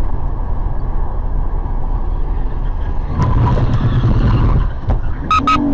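Road and engine noise inside a car driving on a freeway, swelling louder about three seconds in as a pickup truck swerves across the lanes ahead. Near the end come two short sharp beeps and a lower horn-like tone.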